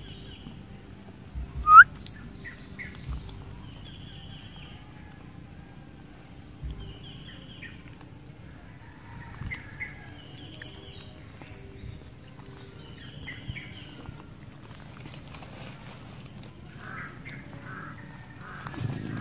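Birds chirping in short repeated phrases every couple of seconds, with one louder rising squeak about two seconds in.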